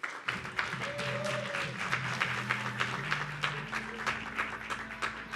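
Audience applauding, with music of held low notes playing underneath. The clapping dies away at the end.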